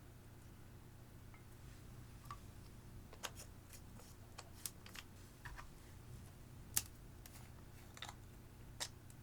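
Clear slime being handled, giving scattered sharp clicks and pops at an irregular pace, the loudest about two-thirds of the way through, over a faint steady hum.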